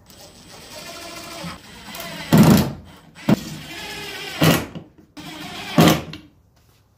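Makita cordless impact driver driving screws into wood. The motor spins up and each screw ends in a short, loud burst as it seats: three times, about a second and a half apart.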